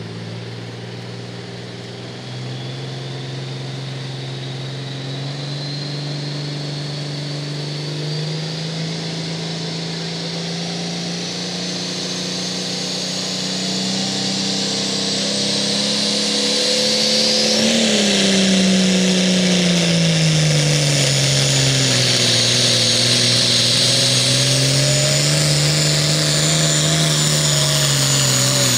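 Turbocharged diesel pulling tractor under full load. Its engine note and a high turbo whistle climb steadily and grow louder. About two-thirds of the way through, the engine pitch drops and then wavers up and down as the load pulls it down, while the turbo whistle stays high.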